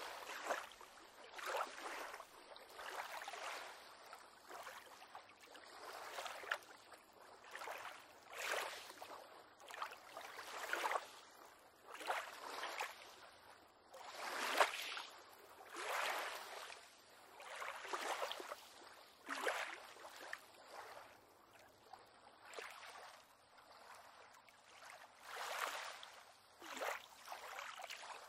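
Small waves lapping against a wooden pier on calm water, in soft irregular splashes every second or two.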